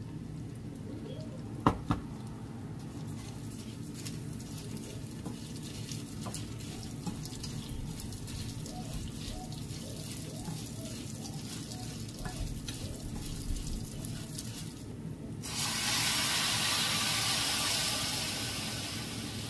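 Rice frying in a pan, stirred and scraped with a wooden spoon, with two sharp knocks about two seconds in. Near the end, water poured into the hot pan sets off a loud sizzling hiss that fades over a few seconds.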